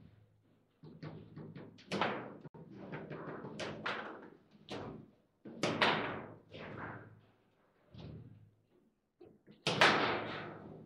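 Table football being played: a rapid, irregular run of hard plastic knocks and clacks as the figures strike the ball and the ball and rods bang against the table, with the loudest burst of hits near the end.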